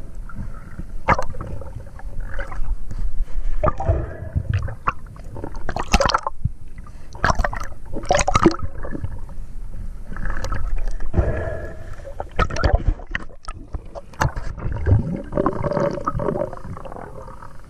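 Muffled underwater sound heard through a camera's waterproof housing: water gurgling and bubbling, with irregular knocks and surges as the freediver moves.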